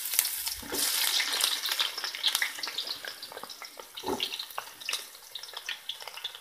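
Chopped onions sizzling and crackling in hot oil in a kadai, loudest at first and dying down as the oil cools around them. A couple of soft knocks come as onions are dropped in.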